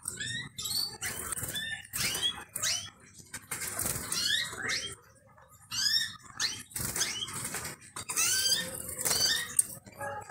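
Domestic canaries calling in a cage: runs of short chirps that swoop up and down in pitch, with a brief lull about halfway through, mixed with wing flutters.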